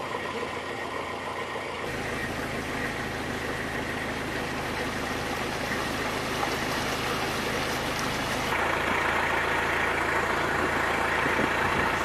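An engine running steadily with a low, even hum under a steady outdoor noise. The background changes abruptly about two seconds in and again past eight seconds.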